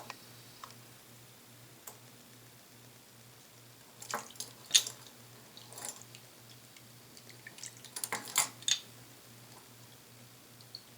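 Soy sauce measured out by the tablespoon into a bowl: small drips and light splashes with short clicks, in two clusters about four and eight seconds in, over a faint steady low hum.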